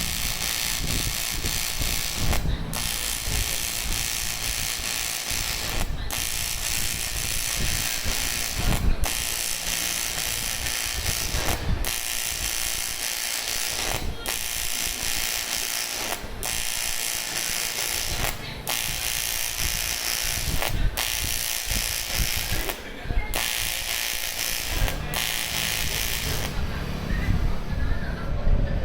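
AC TIG welding arc on aluminium: a steady crackling buzz. It breaks off for a moment every two to three seconds as the weld is laid down in short runs.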